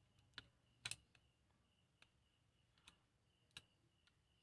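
Near silence with a handful of faint, scattered clicks and taps, the loudest about a second in: small phone parts and a connector being handled on a workbench mat.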